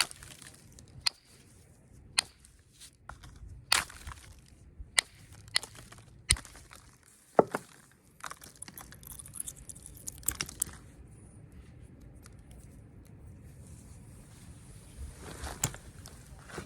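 Flint knapping: sharp, separate clicks of a knapping tool on stone as flakes come off, about a second apart, with a stretch of crunchy scraping in the middle.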